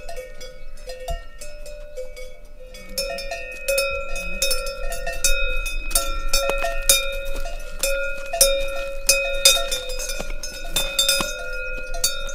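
Cowbells ringing on the necks of cows walking past, clanking irregularly with each step. The ringing grows louder and busier about three seconds in as a belled cow comes close.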